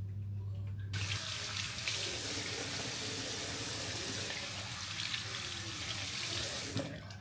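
Water tap turned on about a second in, water running into a sink, then shut off suddenly near the end.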